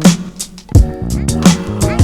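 Background music with a steady beat: a funk-style track with bass, drums and guitar.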